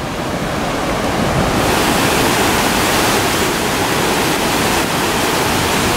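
Heavy storm surf breaking and rushing up the shore, a loud, steady wash of water noise that grows brighter about a second and a half in. The big waves are being driven by an approaching typhoon.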